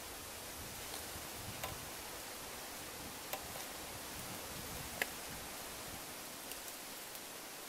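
Wood fire crackling in a cooking stove: a handful of sharp, irregularly spaced pops over a steady hiss, the loudest about five seconds in.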